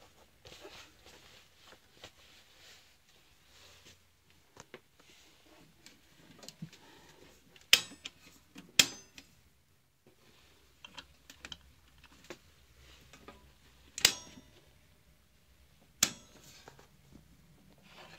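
Four sharp metallic clicks at an electrical circuit breaker panel, two about a second apart near the middle and two more a couple of seconds apart later, with faint rustling of handling between them.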